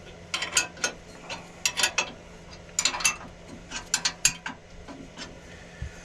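Metal spanner tightening a nut on a Clarke CWL1000CF wood lathe: groups of sharp metallic clicks and clinks, a cluster about every second, as the spanner is worked and refitted on the nut.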